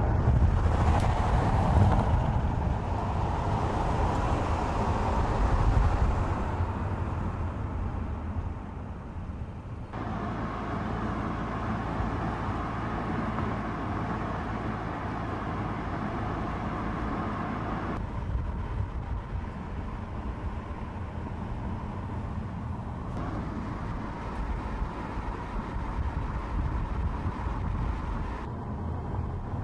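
Volkswagen Touran driving along at steady speed: continuous tyre-on-asphalt and engine noise, changing abruptly in level and tone at several edits between shots.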